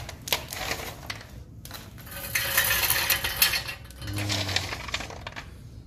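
Wood pellets poured from a metal scoop into a steel stove feed tube, rattling and clattering against the metal in two bursts with a short pause between them.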